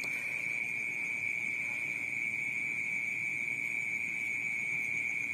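Night chorus of crickets trilling together as one steady, high-pitched drone.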